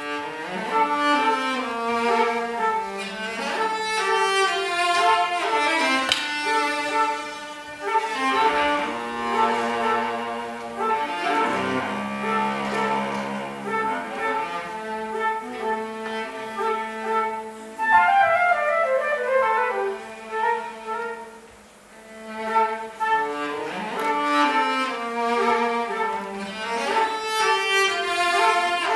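Flute and cello playing a lively chamber duet, their lines interweaving, with a long falling run a little past the middle followed by a brief softer moment.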